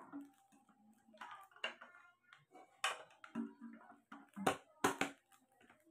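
Hard plastic clicking and handling noise as a water bottle's lid is pressed and fitted onto the bottle, with a few sharp snaps in the second half, the loudest two close together near the end.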